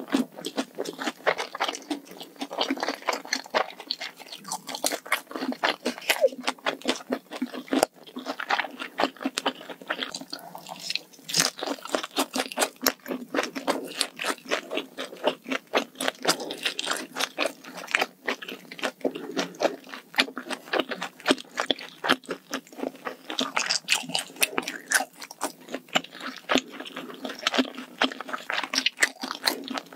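Close-miked ASMR chewing of malatang, a spicy hot pot: a dense, continuous run of quick mouth and teeth clicks as mouthful after mouthful is chewed.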